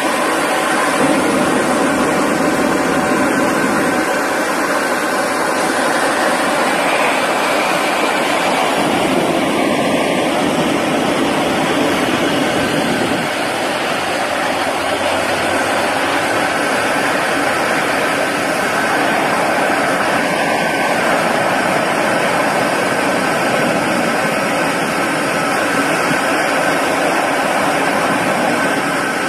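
A steady, loud roar with a hiss that keeps the same level throughout.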